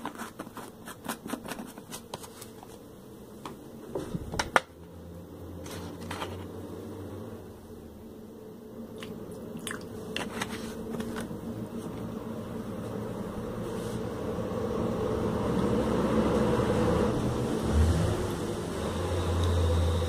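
Clicks and knocks of a plastic glue bottle being handled and capped over a glass on a wooden table, the loudest knock about four and a half seconds in. After that a low hum and a hiss swell steadily louder toward the end.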